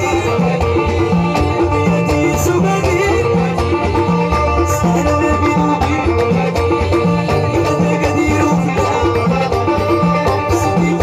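Live tagroupit band music, Souss Amazigh folk style, with a banjo played over a steady, evenly repeating bass pattern.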